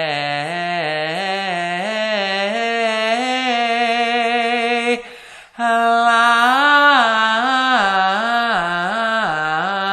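A man singing a quick up-and-down vocal scale on an open vowel as a 'yawning' vowel-modification warm-up, with the throat opened as in a yawn to create space before the vowel changes. He breaks off for a breath about five seconds in, then starts the runs again.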